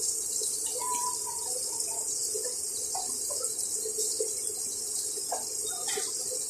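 Water running steadily from a kitchen tap, a continuous hiss, with a few faint small clinks.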